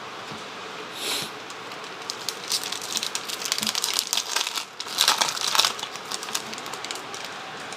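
Trading cards and their foil pack wrapper being handled: crinkling and rustling in short spurts, briefly about a second in, then a run of crackly rustling, loudest a little past the middle.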